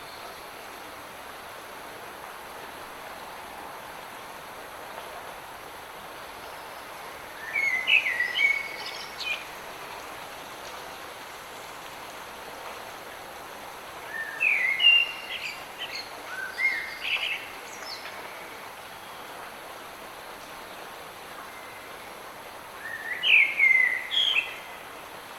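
Light rain falling as a steady hiss, with a songbird singing short, quick chirping phrases three times: about 8 seconds in, around 15 to 17 seconds in, and near the end.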